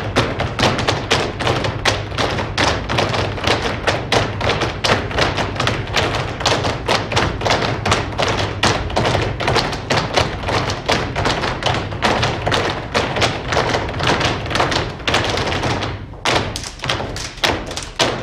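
Flamenco footwork (zapateado): a group of dancers stamping fast, dense heel-and-toe rhythms on the stage floor, thinning to a few separate stamps near the end.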